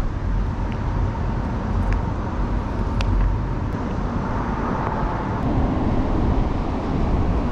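Steady low rumbling outdoor background noise, like traffic or wind, with a few light clicks of handling.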